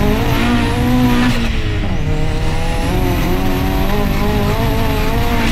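Swapped Audi S3 1.8-litre turbo four-cylinder in a VW Lupo GTI accelerating hard, heard from inside the cabin. The engine note breaks briefly at a gear change about a second and a half in, then climbs steadily, with a thin high whistle rising alongside it.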